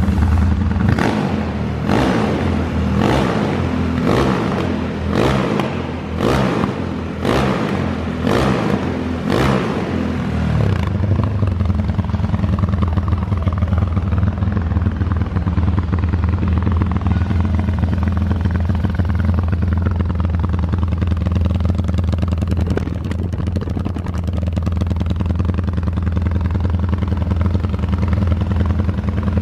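Honda CG Today motorcycle engine, bored out to 370 cc and breathing through an aftermarket exhaust, revved in about a dozen quick throttle blips. About ten seconds in it settles into a steady idle.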